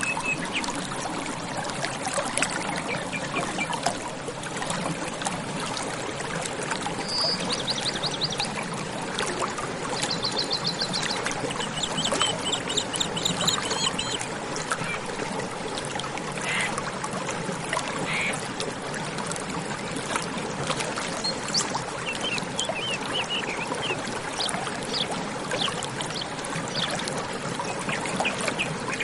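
Running water trickling and splashing steadily, with small birds chirping now and then in short quick series.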